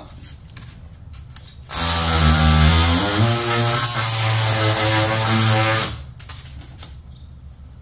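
DeWalt oscillating multi-tool running for about four seconds as its blade cuts into pink foam board, a steady buzzing hum whose pitch steps up about a second after it starts. It starts about two seconds in and stops about six seconds in.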